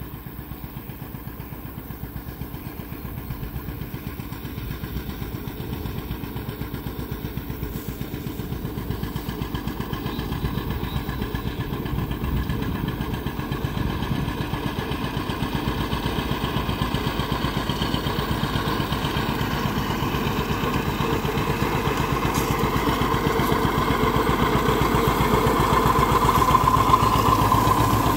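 John Deere 720 diesel tractor's two-cylinder engine running under load while pulling a hay rake, with an even pulsing beat. It grows steadily louder as the tractor comes close.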